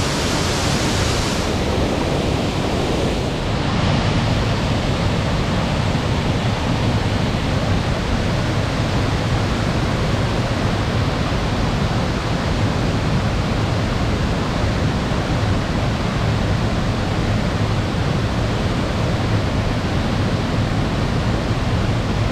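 Waterfall pouring into its plunge pool: a steady roar of falling water.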